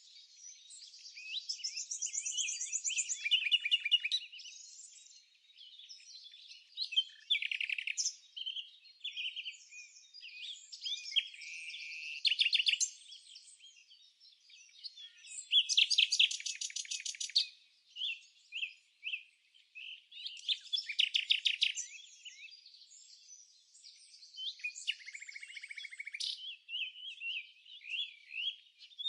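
Songbirds singing: a run of chirps, warbles and quick trills, several of them rattling notes repeated fast, with short pauses between phrases.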